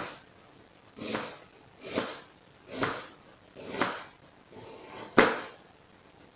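Kitchen knife slicing a red onion into rounds on a plastic cutting board: a short cutting stroke about once a second, six in all, the last one loudest with a sharp knock of the blade on the board.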